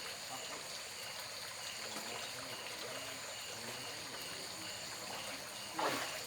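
Steady trickling, running water, with a short high chirp repeating about twice a second and a thin high steady whine behind it. Near the end comes one brief louder splash-like burst.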